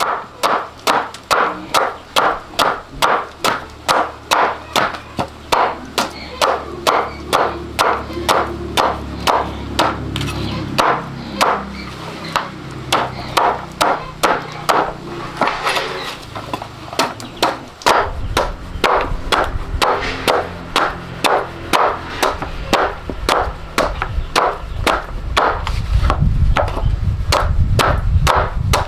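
Steady chopping with a knife, about two strokes a second, with a low rumble underneath over the last ten seconds.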